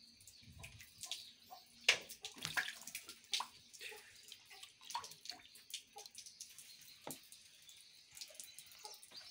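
Water splashing and slapping as red tilapia thrash in shallow pond water and a hand grabs at them; irregular splashes, the loudest about two seconds in.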